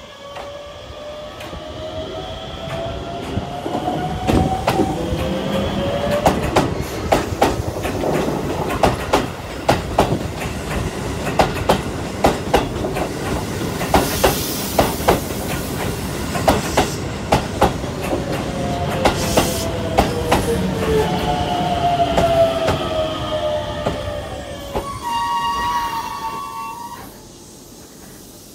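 Keisei 3700-series electric commuter train running close past: its traction-motor whine rises in pitch as it gathers speed, and its wheels click over the rail joints in a steady rhythm. Near the end there is a brief steady high-pitched tone, and then the sound drops away.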